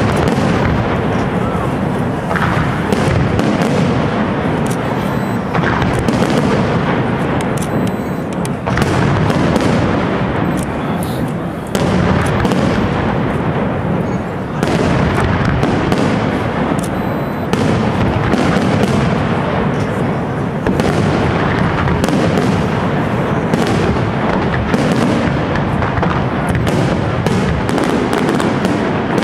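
Aerial fireworks display, a castillo by Pirotecnia Europla: shells and comets bursting in rapid, unbroken succession, a dense barrage of booms and crackle.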